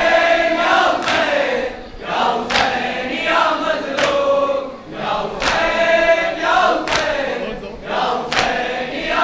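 A group of men singing a Shia noha refrain in chorus, with sharp chest-beating strikes (matam) landing about every one and a half seconds in time with the chant.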